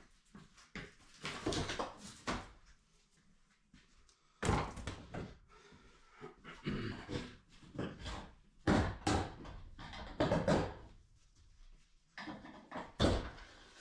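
A cheaply built bathroom vanity cabinet being pried and ripped off the wall by hand, its wood and screws pulling loose in irregular bursts of scraping and cracking.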